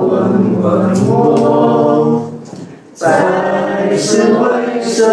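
Voices singing a slow melody in long held notes as intro music; one phrase fades out about two seconds in and the next begins about a second later.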